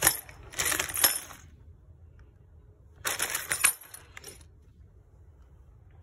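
A plastic zip bag of replacement plow-cable parts rustling as it is handled, with small metal parts clinking inside, in two short bursts.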